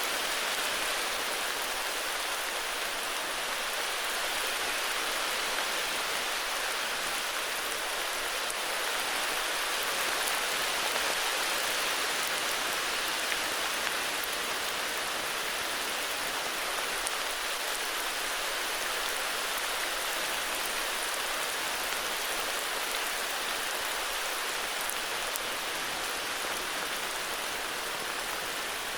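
Heavy rain falling steadily, an even hiss of drops with a few faint drip ticks.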